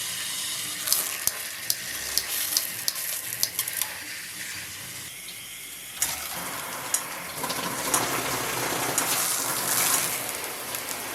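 Waterpik shower head spraying water in a steady rush, with a few sharp clicks; the spray changes about six seconds in.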